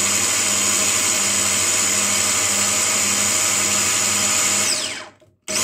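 Arçelik hand blender motor driving its chopper-bowl attachment, running steadily as it blends a frozen-fruit, milk and ice-cream milkshake. Near the end it is switched off and its whine falls as the motor spins down. After a brief stop it starts up again.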